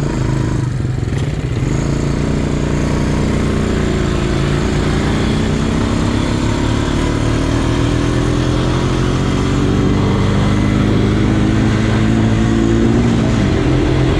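ATV engine running hard under throttle, its pitch climbing slowly as it gathers speed, then dropping off near the end as the throttle is let go.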